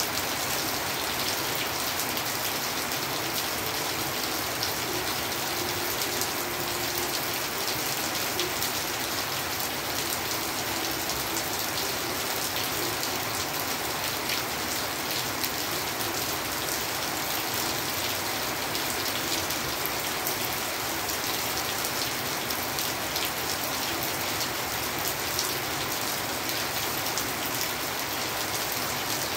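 Steady rain falling on a surface, an even hiss that holds at one level without a break.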